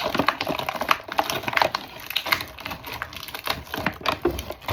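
Small hard-plastic action-figure accessories and packaging being handled, giving a run of irregular clicks and taps.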